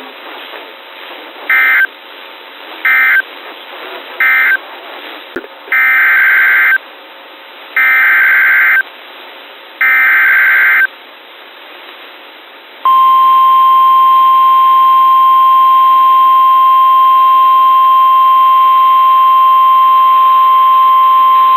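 Emergency Alert System data bursts and attention tone. First come three short buzzy end-of-message bursts, then three longer SAME header bursts about a second each for the next warning. About halfway through, a loud steady single tone near 1 kHz starts: the weather-radio 1050 Hz warning alarm tone, over faint radio hiss.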